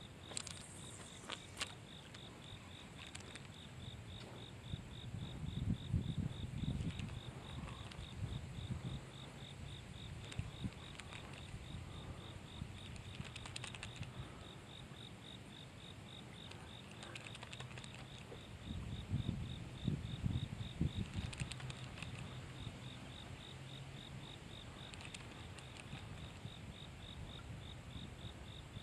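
A cricket chirping steadily in fast, even pulses at a high pitch. Twice, a low muffled noise swells and fades under it.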